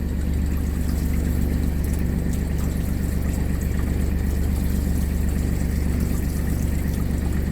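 Beta Marine 25 three-cylinder marine diesel idling steadily, with water running from a tap as the engine-heated hot water supply is tested.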